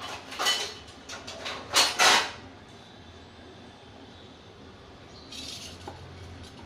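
Kitchenware being handled: a quick run of short scraping and clattering noises in the first two seconds, then one softer scrape near the end.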